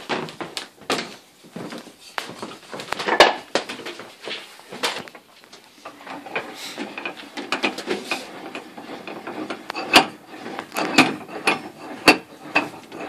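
Irregular clicks, knocks and rubbing of a knife and hand tools being handled at a wooden workbench, with a few sharper knocks about three, ten and twelve seconds in.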